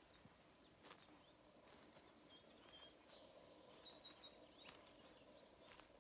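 Near silence: faint outdoor ambience with a few brief, high bird chirps in the middle and a couple of faint clicks.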